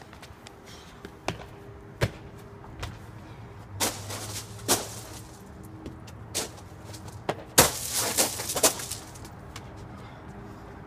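Sneakers scuffing and landing on concrete and hands slapping a concrete ledge during parkour moves: a scatter of sharp knocks and scrapes, loudest in a quick cluster about eight seconds in, over a faint steady hum.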